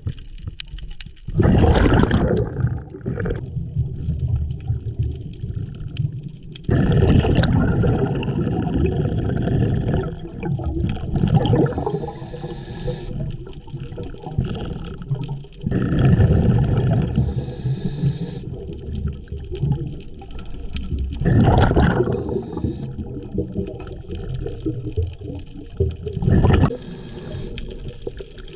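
Scuba regulator breathing recorded underwater: five loud bursts of exhaled bubbles gurgling out, each a second or more long, with quieter hissing between them.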